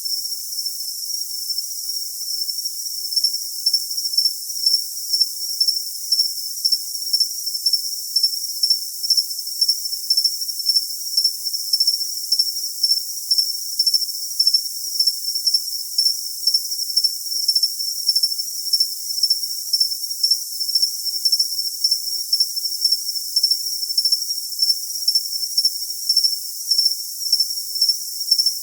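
Crickets chirping: a thin, high-pitched continuous trill that pulses in regular louder chirps about twice a second from about three seconds in.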